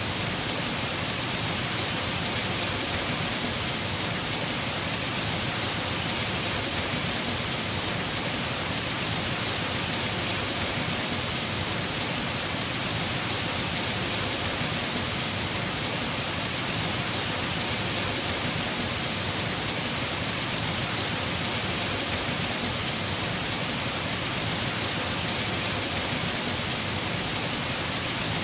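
Heavy rain falling steadily on a house roof, an even hiss of countless drops.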